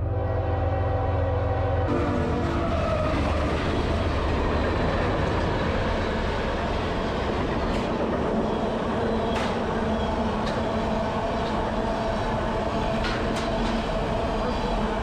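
A train horn sounds a steady chord of several notes that stops about two seconds in. The train then runs past with a steady rumble and scattered sharp clacks.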